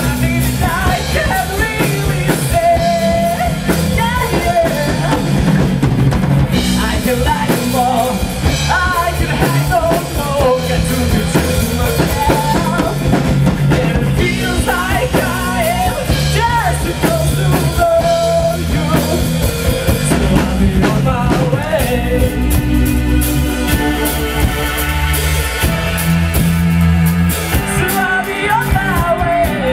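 Live rock band playing, with drum kit, bass and a singer. About three quarters of the way through, the singing drops back and sustained instrument chords carry the music.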